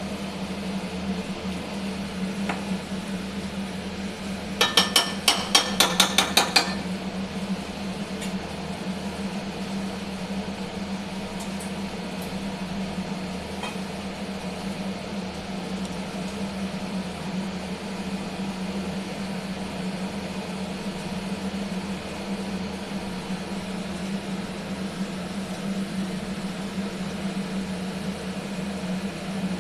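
Chicken curry cooking with a steady low hum throughout. About five seconds in comes a quick run of about nine sharp, ringing metal knocks, like a spoon striking the rim of the cooking pot.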